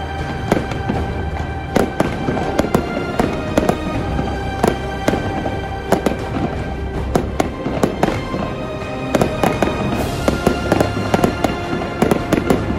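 Aerial fireworks shells bursting in a string of sharp bangs and crackles, thickening into a rapid crackle about ten seconds in, over steady background music.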